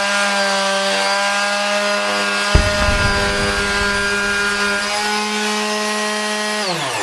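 TackLife PMS02B mouse detail sander, a 12,000-oscillations-per-minute electric sander, running with a steady high hum. There is one knock about two and a half seconds in. Near the end it is switched off and winds down, its pitch falling.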